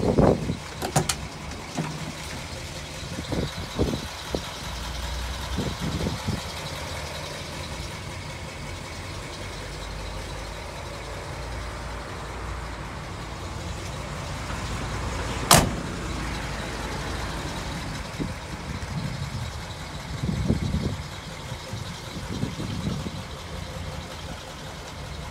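Steady low rumble of an idling vehicle engine, with a single sharp click about two-thirds of the way through.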